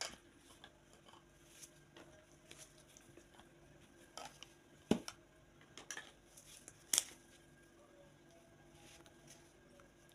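Scattered light clicks and knocks of a plastic spatula and brush handled against a glass jar and plastic lid, the sharpest about five and seven seconds in.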